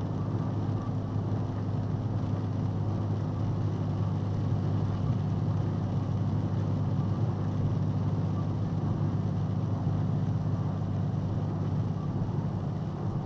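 Cab noise of a box truck cruising at highway speed, about 62 mph: a steady, unchanging low drone of engine and road noise.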